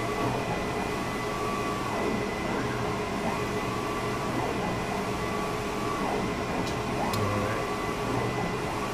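Stratasys Connex 500 PolyJet 3D printer running: the print-head carriage sweeps back and forth, its drive whine rising and falling with each pass about every second and a half, over a steady machine hum.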